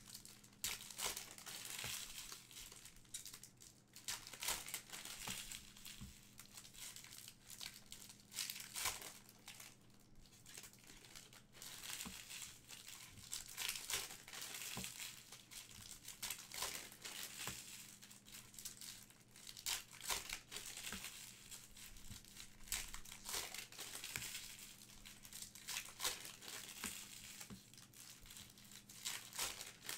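Trading-card pack wrappers crinkling and tearing as packs are opened by hand, an irregular run of crackles, over a faint steady low hum.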